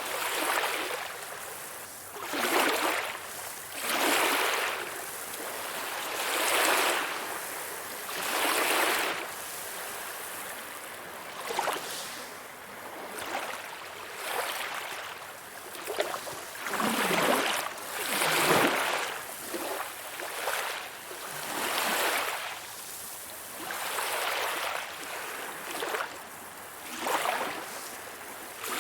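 Calm sea waves lapping, a swell of washing water rising and falling about every two seconds, with a few sharper splashes.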